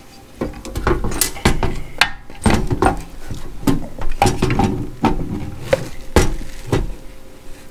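Two aluminium-housed LED light bars being handled and set down on a hard surface: a series of knocks, clunks and clinks as they are moved and lined up.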